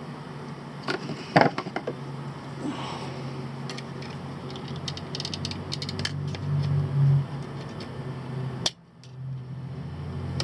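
A steel chisel scraping and clicking against the hard black epoxy potting over a chip on a circuit board: scattered sharp clicks, a loud one about a second and a half in and a quick run of ticks around five to six seconds in, over a steady low hum. The epoxy is hard enough to roll the chisel's edge.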